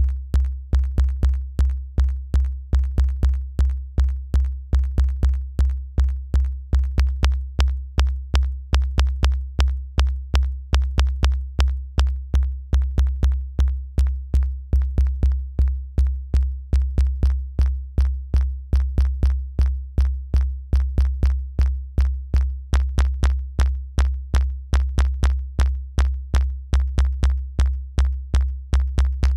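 A synthesized drum hit repeating in a steady sequenced rhythm at 120 BPM: each hit is a deep low thud with a sharp crackling click on top, made by ring-modulating a sample with a very narrow-pulse wavetable oscillator. The buzz and crackle change character as the oscillator's phase is moved.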